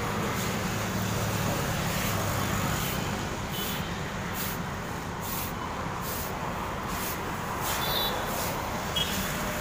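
Road traffic with a heavy diesel vehicle such as a truck running by: a steady low engine drone that is loudest in the first few seconds and then eases off.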